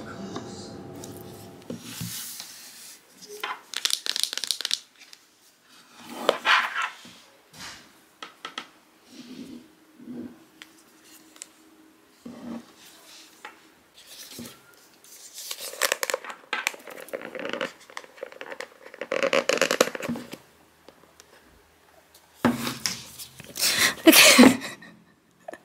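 Paper and cardboard tearing and rustling as an iPhone 13 Pro box is unsealed and its lid worked off, in a string of separate bursts.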